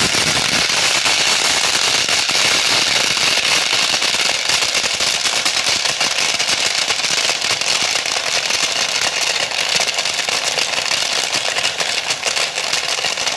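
Electric blender running at full speed, with a dense crackling rattle of candies being smashed by the blade against the plastic jar.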